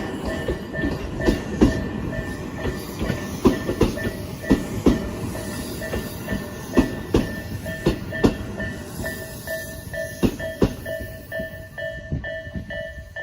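A Japanese level-crossing warning bell rings in steady repeated strokes while a train passes over the crossing. The train's wheels rumble and clack in irregular loud knocks over the rail joints.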